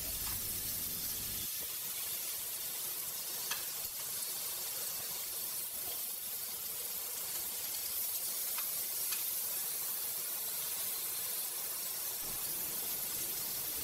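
Lamb chops sizzling steadily on a very hot ridged grill pan, with a few faint clicks.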